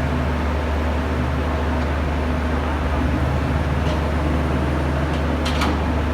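Truck engine sound running steadily with a low, even drone, with a few faint clicks near the end.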